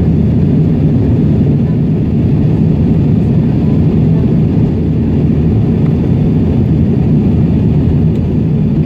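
Steady low rumble of an Airbus A320's engines and rushing air heard from inside the passenger cabin in flight.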